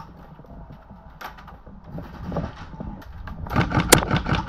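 Low rumble and small handling clicks, then near the end a single sharp crack: an airsoft rifle firing one shot.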